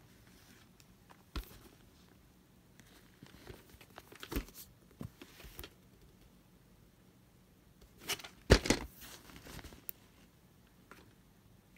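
A VHS tape case being handled and turned over in the hands: scattered rustles and clicks of plastic. The loudest cluster comes about eight and a half seconds in.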